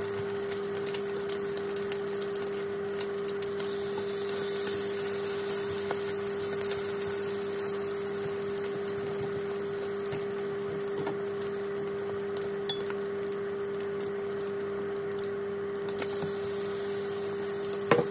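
Egg-and-cream-soaked bread slices frying in butter in a nonstick pan: a steady sizzle with small crackles over a steady low hum. Two brief clicks, one past the middle and one near the end.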